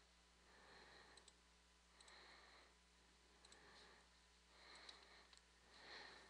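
Near silence, broken by faint computer mouse clicks that come in quick press-and-release pairs about once a second, with soft swells of hiss in between.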